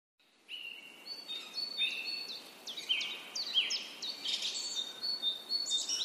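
Several birds singing together: overlapping clear whistled notes and quick sweeping chirps, starting about half a second in, over a faint background hiss.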